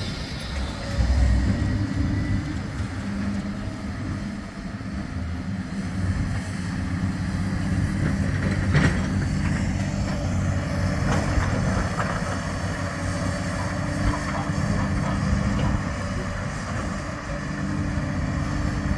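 Diesel engines of demolition excavators running in a steady low drone, with a sharp knock about nine seconds in.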